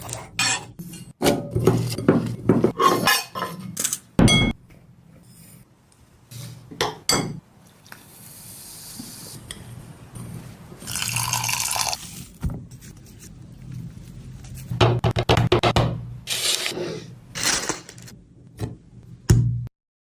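Kitchen food-prep sounds: dishes, pans and utensils clinking, knocking and scraping, with two spells of steady hissing noise about halfway through.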